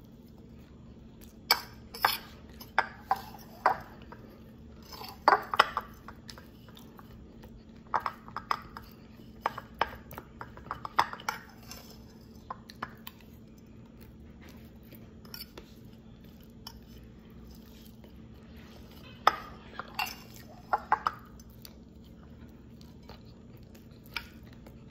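Metal spoon clinking and scraping on a glass plate of spaghetti with manioc flour, in scattered irregular strikes, with close-up chewing between them. The clinks cluster in the first half and again about two thirds through, with a quieter stretch in between.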